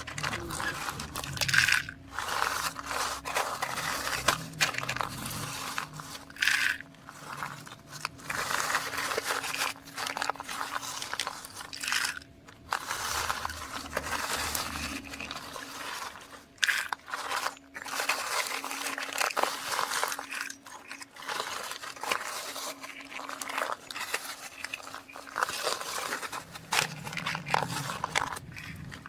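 Irregular crunching and rustling noise that comes in uneven bursts with short breaks, over a faint steady low hum.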